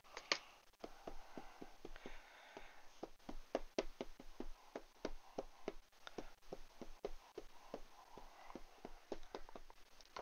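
Ink pad dabbed repeatedly onto a clear stamp on an acrylic block to ink it: a fast, uneven run of light taps, several a second.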